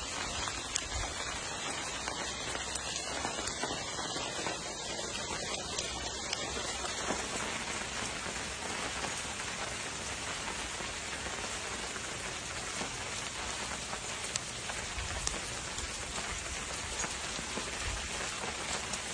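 A shower of small volcanic rocks and ash thrown out by Mount Etna's eruption, falling onto the ground and roofs: a steady, dense hiss of countless small impacts with scattered sharper ticks, the sound of tephra fall during the eruption.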